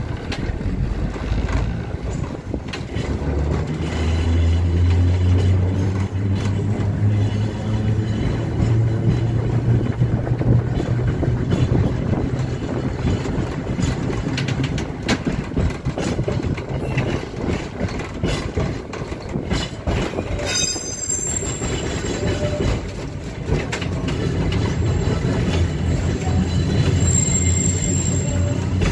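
Electric streetcar San Jose Railroads #124 running on its track, heard from the motorman's platform: a steady low motor hum that comes in a few seconds in, over the rattle of the car and wheels on the rails. Short high squeals cut in about two-thirds of the way through and again near the end.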